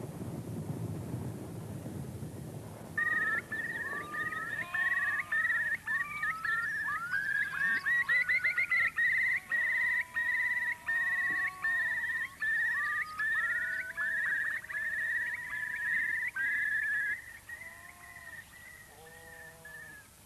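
A low rumbling noise, then about three seconds in, a sudden chorus of high whistling calls: a steady note repeated about twice a second, overlapped by many rising whistles and lower arched notes. The chorus thins out near the end.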